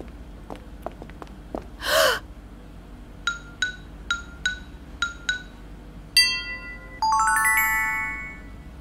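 Cartoon sound effects. A few faint clicks and a short whoosh come first, then six quick bell-like plinks, about three a second, which fit a wagging finger. Near the end a sparkling chime and a rising run of chime tones ring on for about a second and a half.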